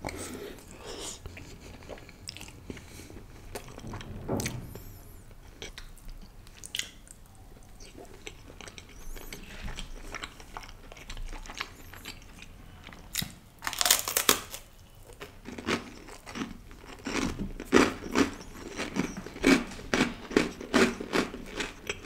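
Close-miked eating sounds: soft chewing of penne pasta, then a louder crunchy bite into garlic bread about 14 seconds in, followed by steady crunchy chewing, one or two chews a second.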